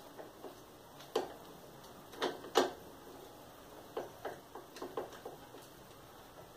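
Metal wrench clicking and knocking against the bolts at the top of a motorcycle engine: several short, irregular metallic clicks, the loudest about two and a half seconds in.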